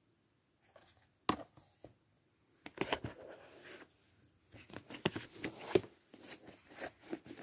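Plastic DVD cases being handled and shuffled: a sharp clack a little over a second in, then irregular scraping and clattering of cases against each other.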